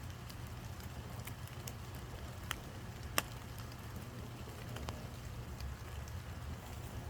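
Scattered raindrops ticking close to the microphone over a steady low rumble, with two sharper clicks about two and a half and three seconds in.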